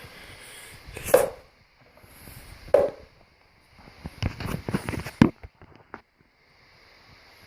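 Homemade air horn sputtering without sounding a full note: two sharp pops about a second and a half apart, then an irregular rattling run of pops and clicks lasting about a second, and a last click. This is typical of the horn getting too little air pressure.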